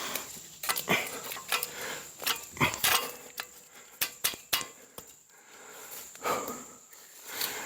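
Metal ladder stand being handled: a string of sharp metal clinks and knocks at uneven intervals, with heavy breathing between them.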